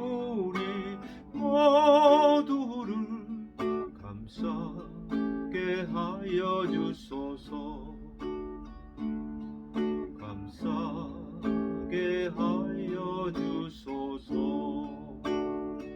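Acoustic guitar picking the slow closing bars of a hymn, note by note with chords ringing out. Near the start a voice holds one last sung note with vibrato.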